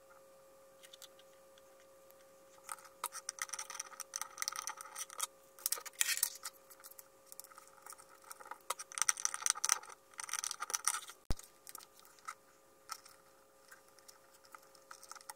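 Handling noise of a small amplifier circuit board and its wires: scattered clicks, taps and scrapes of fingers, bare wire ends and plastic connectors, busiest from about three to eleven seconds in, with one sharp click just after. A faint steady tone runs underneath.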